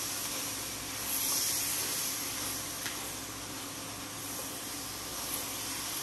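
Chopped onions, mushrooms, carrots and celery sizzling in oil in a hot enamelled cast-iron Dutch oven as they are stirred, a steady hiss that swells briefly about a second in.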